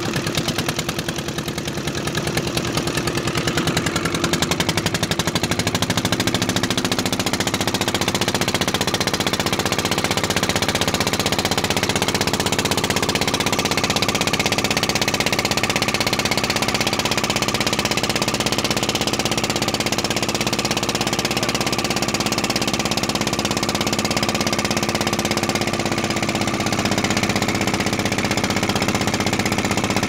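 Boat engine running steadily under way, with a rapid, even pulsing beat.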